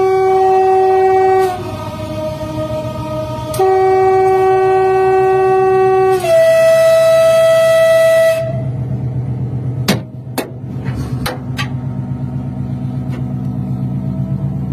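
Train horn sounding three long blasts, the last one louder and pitched differently. Then the train runs with a steady low rumble, and a few sharp knocks, stones thrown at the train striking it, about seven seconds after the horn begins.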